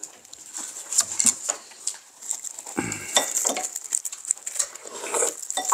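Eating at the table: metal spoons and chopsticks clicking and scraping against a metal bowl and dishes, with chewing, in many short irregular clicks.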